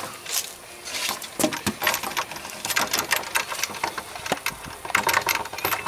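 Plastic toy steering wheel on a wooden playset being turned by hand, rattling and clicking irregularly as it spins on its mount.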